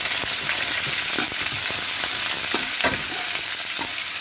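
A tempering of green chillies, garlic and curry leaves sizzling in hot oil in a stainless steel kadai while a steel ladle stirs it, with a few scrapes of the ladle on the pan, the sharpest nearly three seconds in.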